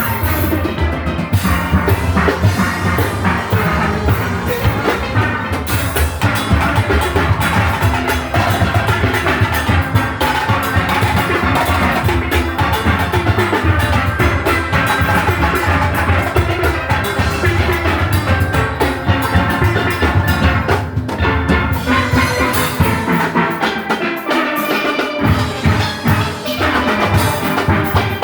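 A steel orchestra playing: many steelpans with a drum kit and percussion keeping a steady beat. The low bass part drops out for a couple of seconds about 23 seconds in, then comes back.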